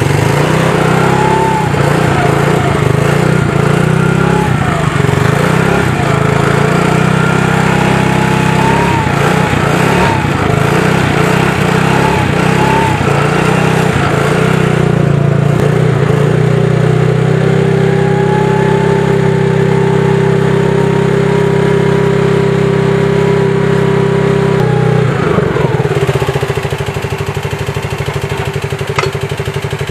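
Yamaha Fino scooter's small single-cylinder four-stroke engine running just after its first start since being freed from a seizure. It is revved in uneven blips, then held at a steady higher speed, and drops back to idle about 25 seconds in.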